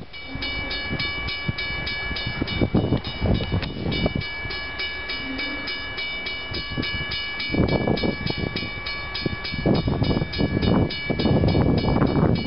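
Diesel freight locomotive approaching at a distance and picking up speed. A bell rings rapidly and steadily throughout, about five strokes a second. Gusts of wind buffet the microphone.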